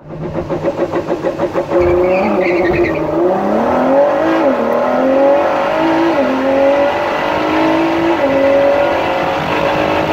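2017 Ford GT's twin-turbo 3.5-litre EcoBoost V6 on a launch-control start, heard from inside the cabin. The engine note stutters rapidly for the first two seconds, then runs at full throttle, its pitch climbing and dropping back at each of several quick upshifts of the dual-clutch gearbox.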